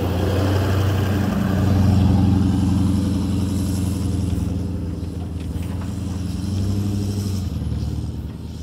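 Toyota LandCruiser 4WD's engine running steadily as it drives past and away along a soft sand track, loudest about two seconds in and fading toward the end.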